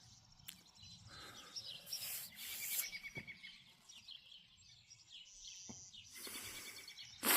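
Songbirds chirping and singing, with a short trill a little over two seconds in, over faint outdoor background noise; a brief bump near the end.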